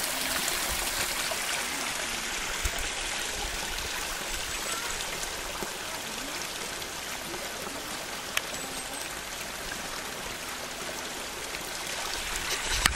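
Small mountain brook running over rocks: a steady trickling rush of water that eases off a little partway through.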